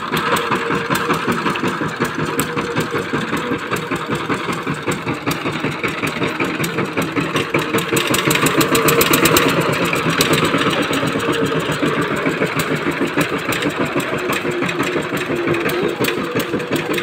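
Power tiller engine running steadily with rapid, regular firing pulses as the two-wheel tractor drives through mud, a little louder about eight to ten seconds in.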